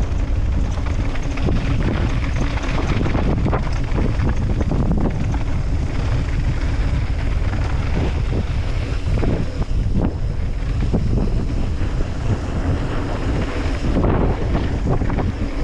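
Wind buffeting a GoPro's microphone at riding speed, over the rumble of mountain-bike tyres on a dirt trail and frequent knocks and rattles from the bike over bumps.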